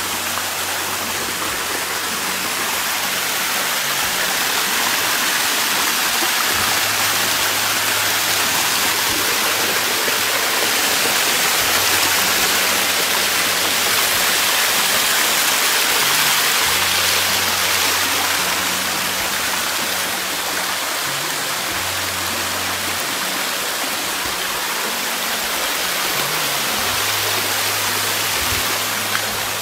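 Shallow jungle stream and waterfall: a steady, loud rush of water pouring over rocks, a little louder around the middle.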